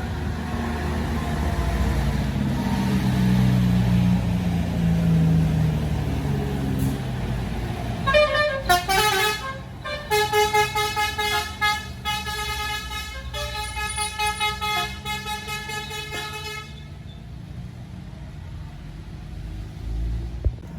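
Indonesian bus's basuri multi-tone air horn blown in a quick run of short melodic blasts that change pitch, starting about eight seconds in and cutting off sharply near the end. The bus's diesel engine runs under it.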